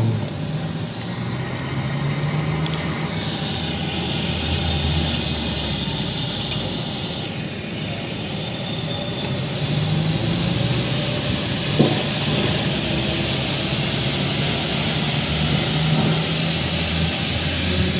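A long, steady droning rumble with a hiss over it, the kind of unexplained noise people record and call a strange sound in the sky. Low hum tones come and go under it, and there is one short click about twelve seconds in.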